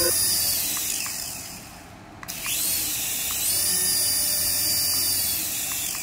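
Toy RC helicopter's coaxial rotors and small electric motors whining at high pitch. The rotors wind down over the first two seconds, spin up again a little past two seconds in, run steadily, then slow near the end.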